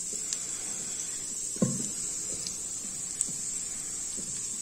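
Garlic sizzling steadily in the inner pot of an electric pressure cooker on its sauté setting. A louder clunk comes about a second and a half in, with a few faint knocks.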